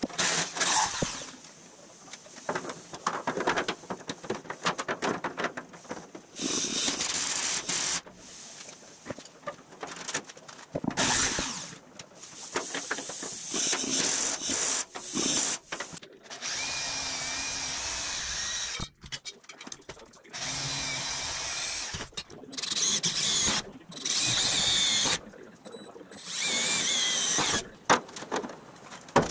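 Power drill drilling into the metal body-mount bracket in about eight short bursts of one to three seconds, its motor whine wavering as the bit bites, with quieter scraping and handling between bursts.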